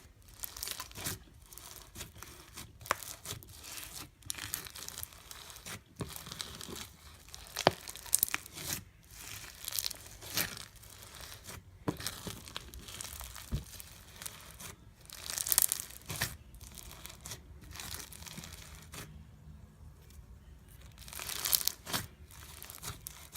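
Hands squishing and stretching a homemade black slime full of big and small foam beads: irregular crackling and crunching as the beads pop and the slime tears and folds.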